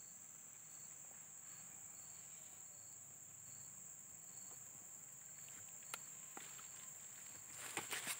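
Faint steady high insect drone with a cricket giving a short chirp about every three-quarters of a second. A few short sharp clicks come near the end.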